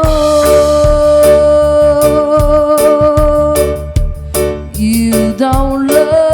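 Reggae band playing live: bass and drum beat under a long held note for the first three and a half seconds, then a new melodic phrase comes in near the end.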